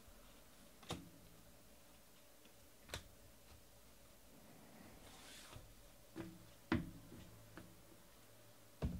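About six light, sharp taps and clicks on a tabletop, spaced irregularly. The first comes as a stack of trading cards is set down, with a faint rustle between the taps.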